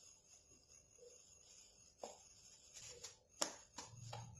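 Disposable plastic gloves crinkling and a few light handling taps as gloved hands shape a stuffed dough ball over a steel bowl. The first two seconds are nearly silent; the sharpest tap comes about three and a half seconds in.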